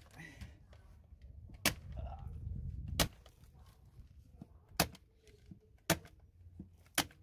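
Staple gun firing staples to fix polyester underfloor insulation in place: five sharp snaps, roughly a second or so apart.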